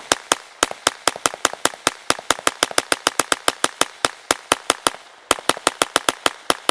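Tippmann .22 LR Gatling gun firing in rapid, even strings of sharp cracks as its handle is cranked, about six shots a second. The string breaks off for about half a second near five seconds in, then resumes at the same pace.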